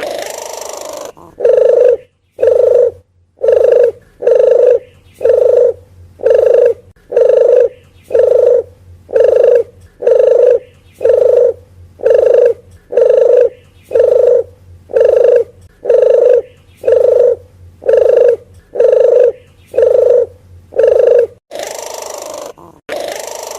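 Deruk geni (puter geni) dove calling: a long, evenly paced string of short low coo notes, about one and a half a second. A breathier, hissing sound stands at the very start and returns near the end.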